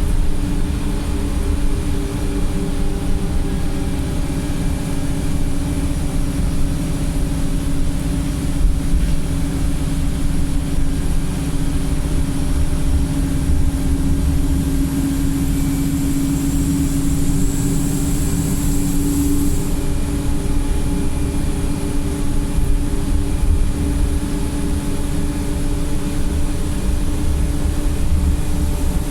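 Wright StreetLite single-deck bus heard from inside the saloon: steady diesel engine hum and road rumble while the bus runs in limp mode. A high whine builds from about halfway through and cuts off suddenly about two-thirds of the way in.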